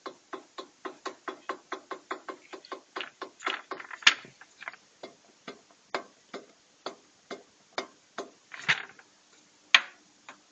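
Pistons being rocked in the bores of an opened VAZ-21124 engine, their skirts clicking against the cylinder walls about three to four times a second, some knocks louder than others. The clicking is the excess play of STK 82.5 mm pistons whose skirts have worn down, the cause of the piston knock the engine developed.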